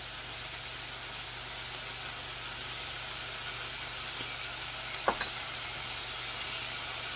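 Onion and hosta leaves sizzling steadily in hot oil in a frying pan, with a single sharp click about five seconds in.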